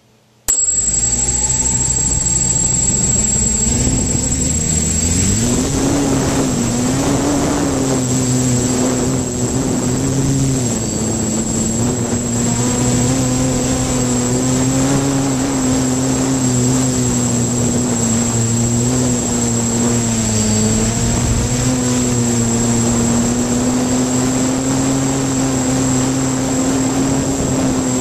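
3DR hexacopter's six electric motors and propellers spinning up suddenly, heard from right on one arm. The pitch rises a few seconds later as it lifts off, then settles into a steady drone that wavers gently as the craft holds its height, with a thin high whine over it.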